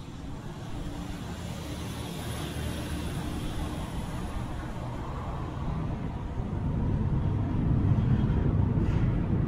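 Road traffic: a steady motor-vehicle rumble that grows louder in the last few seconds as a vehicle draws near.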